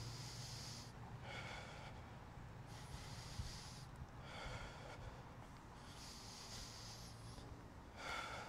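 A person breathing hard close to the microphone while walking between running intervals: slow alternating breaths in and out, about three full breaths.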